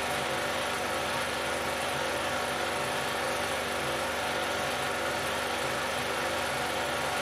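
16mm film projector running: a steady mechanical whir and hum that stays even throughout.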